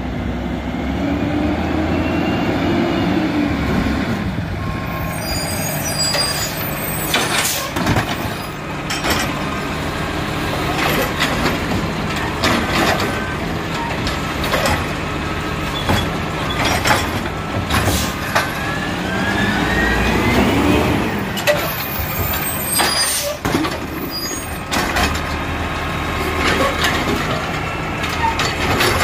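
Peterbilt 320 garbage truck with a Wayne Curbtender automated side-loader body, its diesel engine running and twice rising and falling in pitch as the hydraulic arm lifts and dumps a cart. There are repeated knocks and bangs of the arm and cart against the body from about seven seconds in.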